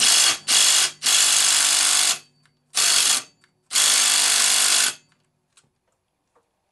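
A DeWalt cordless impact driver hammering on a McCulloch 110 chainsaw's clutch nut in five bursts: two short, one of about a second, a short one, then another of about a second. The nut does not break loose while only engine compression holds the crankshaft.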